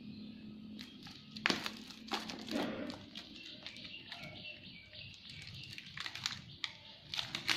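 Phone packaging being handled: scattered crinkling and rustling of wrap and cardboard, with light clicks.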